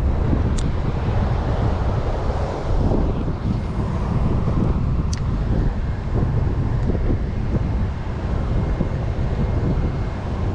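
Wind buffeting the microphone over a steady rush of river water, with a couple of sharp ticks.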